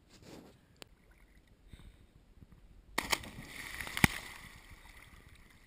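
A big splash into lake water right beside the camera: a sudden loud hit about three seconds in, then spray and churning water for a second or two, with one sharp tap about a second after the hit.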